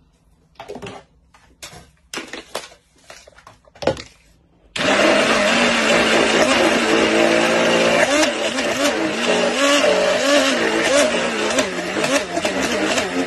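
A few light knocks and clatters, then about five seconds in a hand-held stick blender starts suddenly and runs steadily. Its motor pitch wavers up and down as it emulsifies a thick chocolate, cocoa-butter and fruit-purée mixture in a plastic jug.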